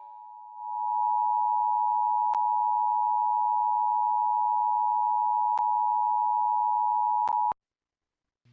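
Emergency Alert System two-tone attention signal, a steady paired tone near 1 kHz. It swells up over the first second, holds for about seven seconds, then cuts off sharply. It is the alarm that comes before a Severe Thunderstorm Watch alert message.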